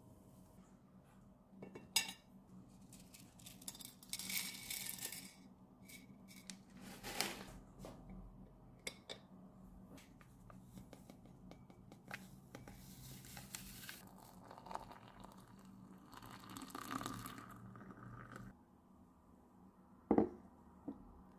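Kitchen handling sounds: a fork working a croissant in a non-stick frying pan, then crockery on a table, with scattered clicks, scrapes and clinks over a low steady hum. A sharp knock comes about two seconds in and another near the end.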